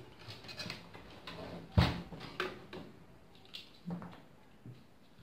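Scattered plastic clicks and knocks of a 120 mm case fan and its cable being handled and fitted inside a computer case, with the loudest knock a little under two seconds in.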